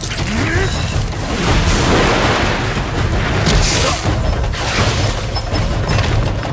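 Animated fight-scene sound effects: a dense mix of booming and crashing impacts, with louder surges about two seconds in and again near four seconds, over dramatic background music.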